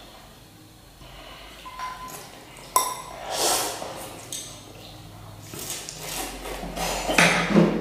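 A metal spoon clinking against ceramic bowls in a few ringing clinks, the sharpest about three seconds in, among softer scraping and handling noise.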